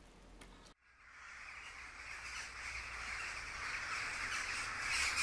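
Many jackdaws calling together, a dense mass of calls that fades in about a second in and grows steadily louder.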